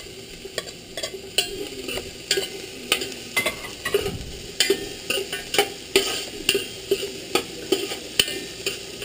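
Chopped onion and garlic frying in hot oil in an aluminium pressure-cooker pot, with a steady sizzle, as a metal spoon stirs and scrapes against the pot in repeated short clicks and scrapes. The onion has just gone in and is being sautéed until translucent.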